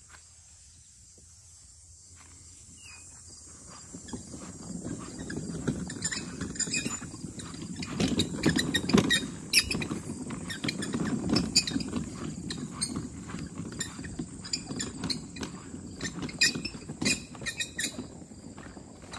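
Garden utility wagon being pulled over grass and a dirt trail: the wheels roll with a low rumble while the bed rattles with many quick clicks. The sound starts quietly and builds up about four seconds in.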